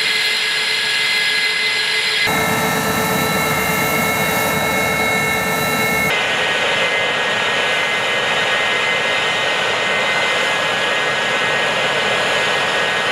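Su-35S fighter's twin turbofan jet engines running on the ground: a steady roar with several high whining tones. The sound shifts abruptly twice, about two and six seconds in, as it jumps between recordings.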